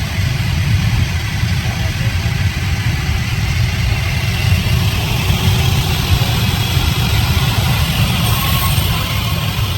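Sawmill machinery running with a steady low rumble.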